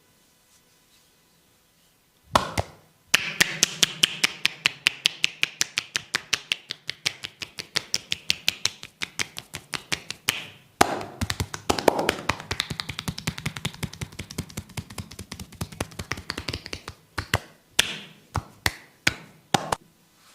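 Percussive massage strokes: a masseur's hands rapidly tapping and patting on the body, about five or six strikes a second in long runs, then a few separate sharp slaps near the end.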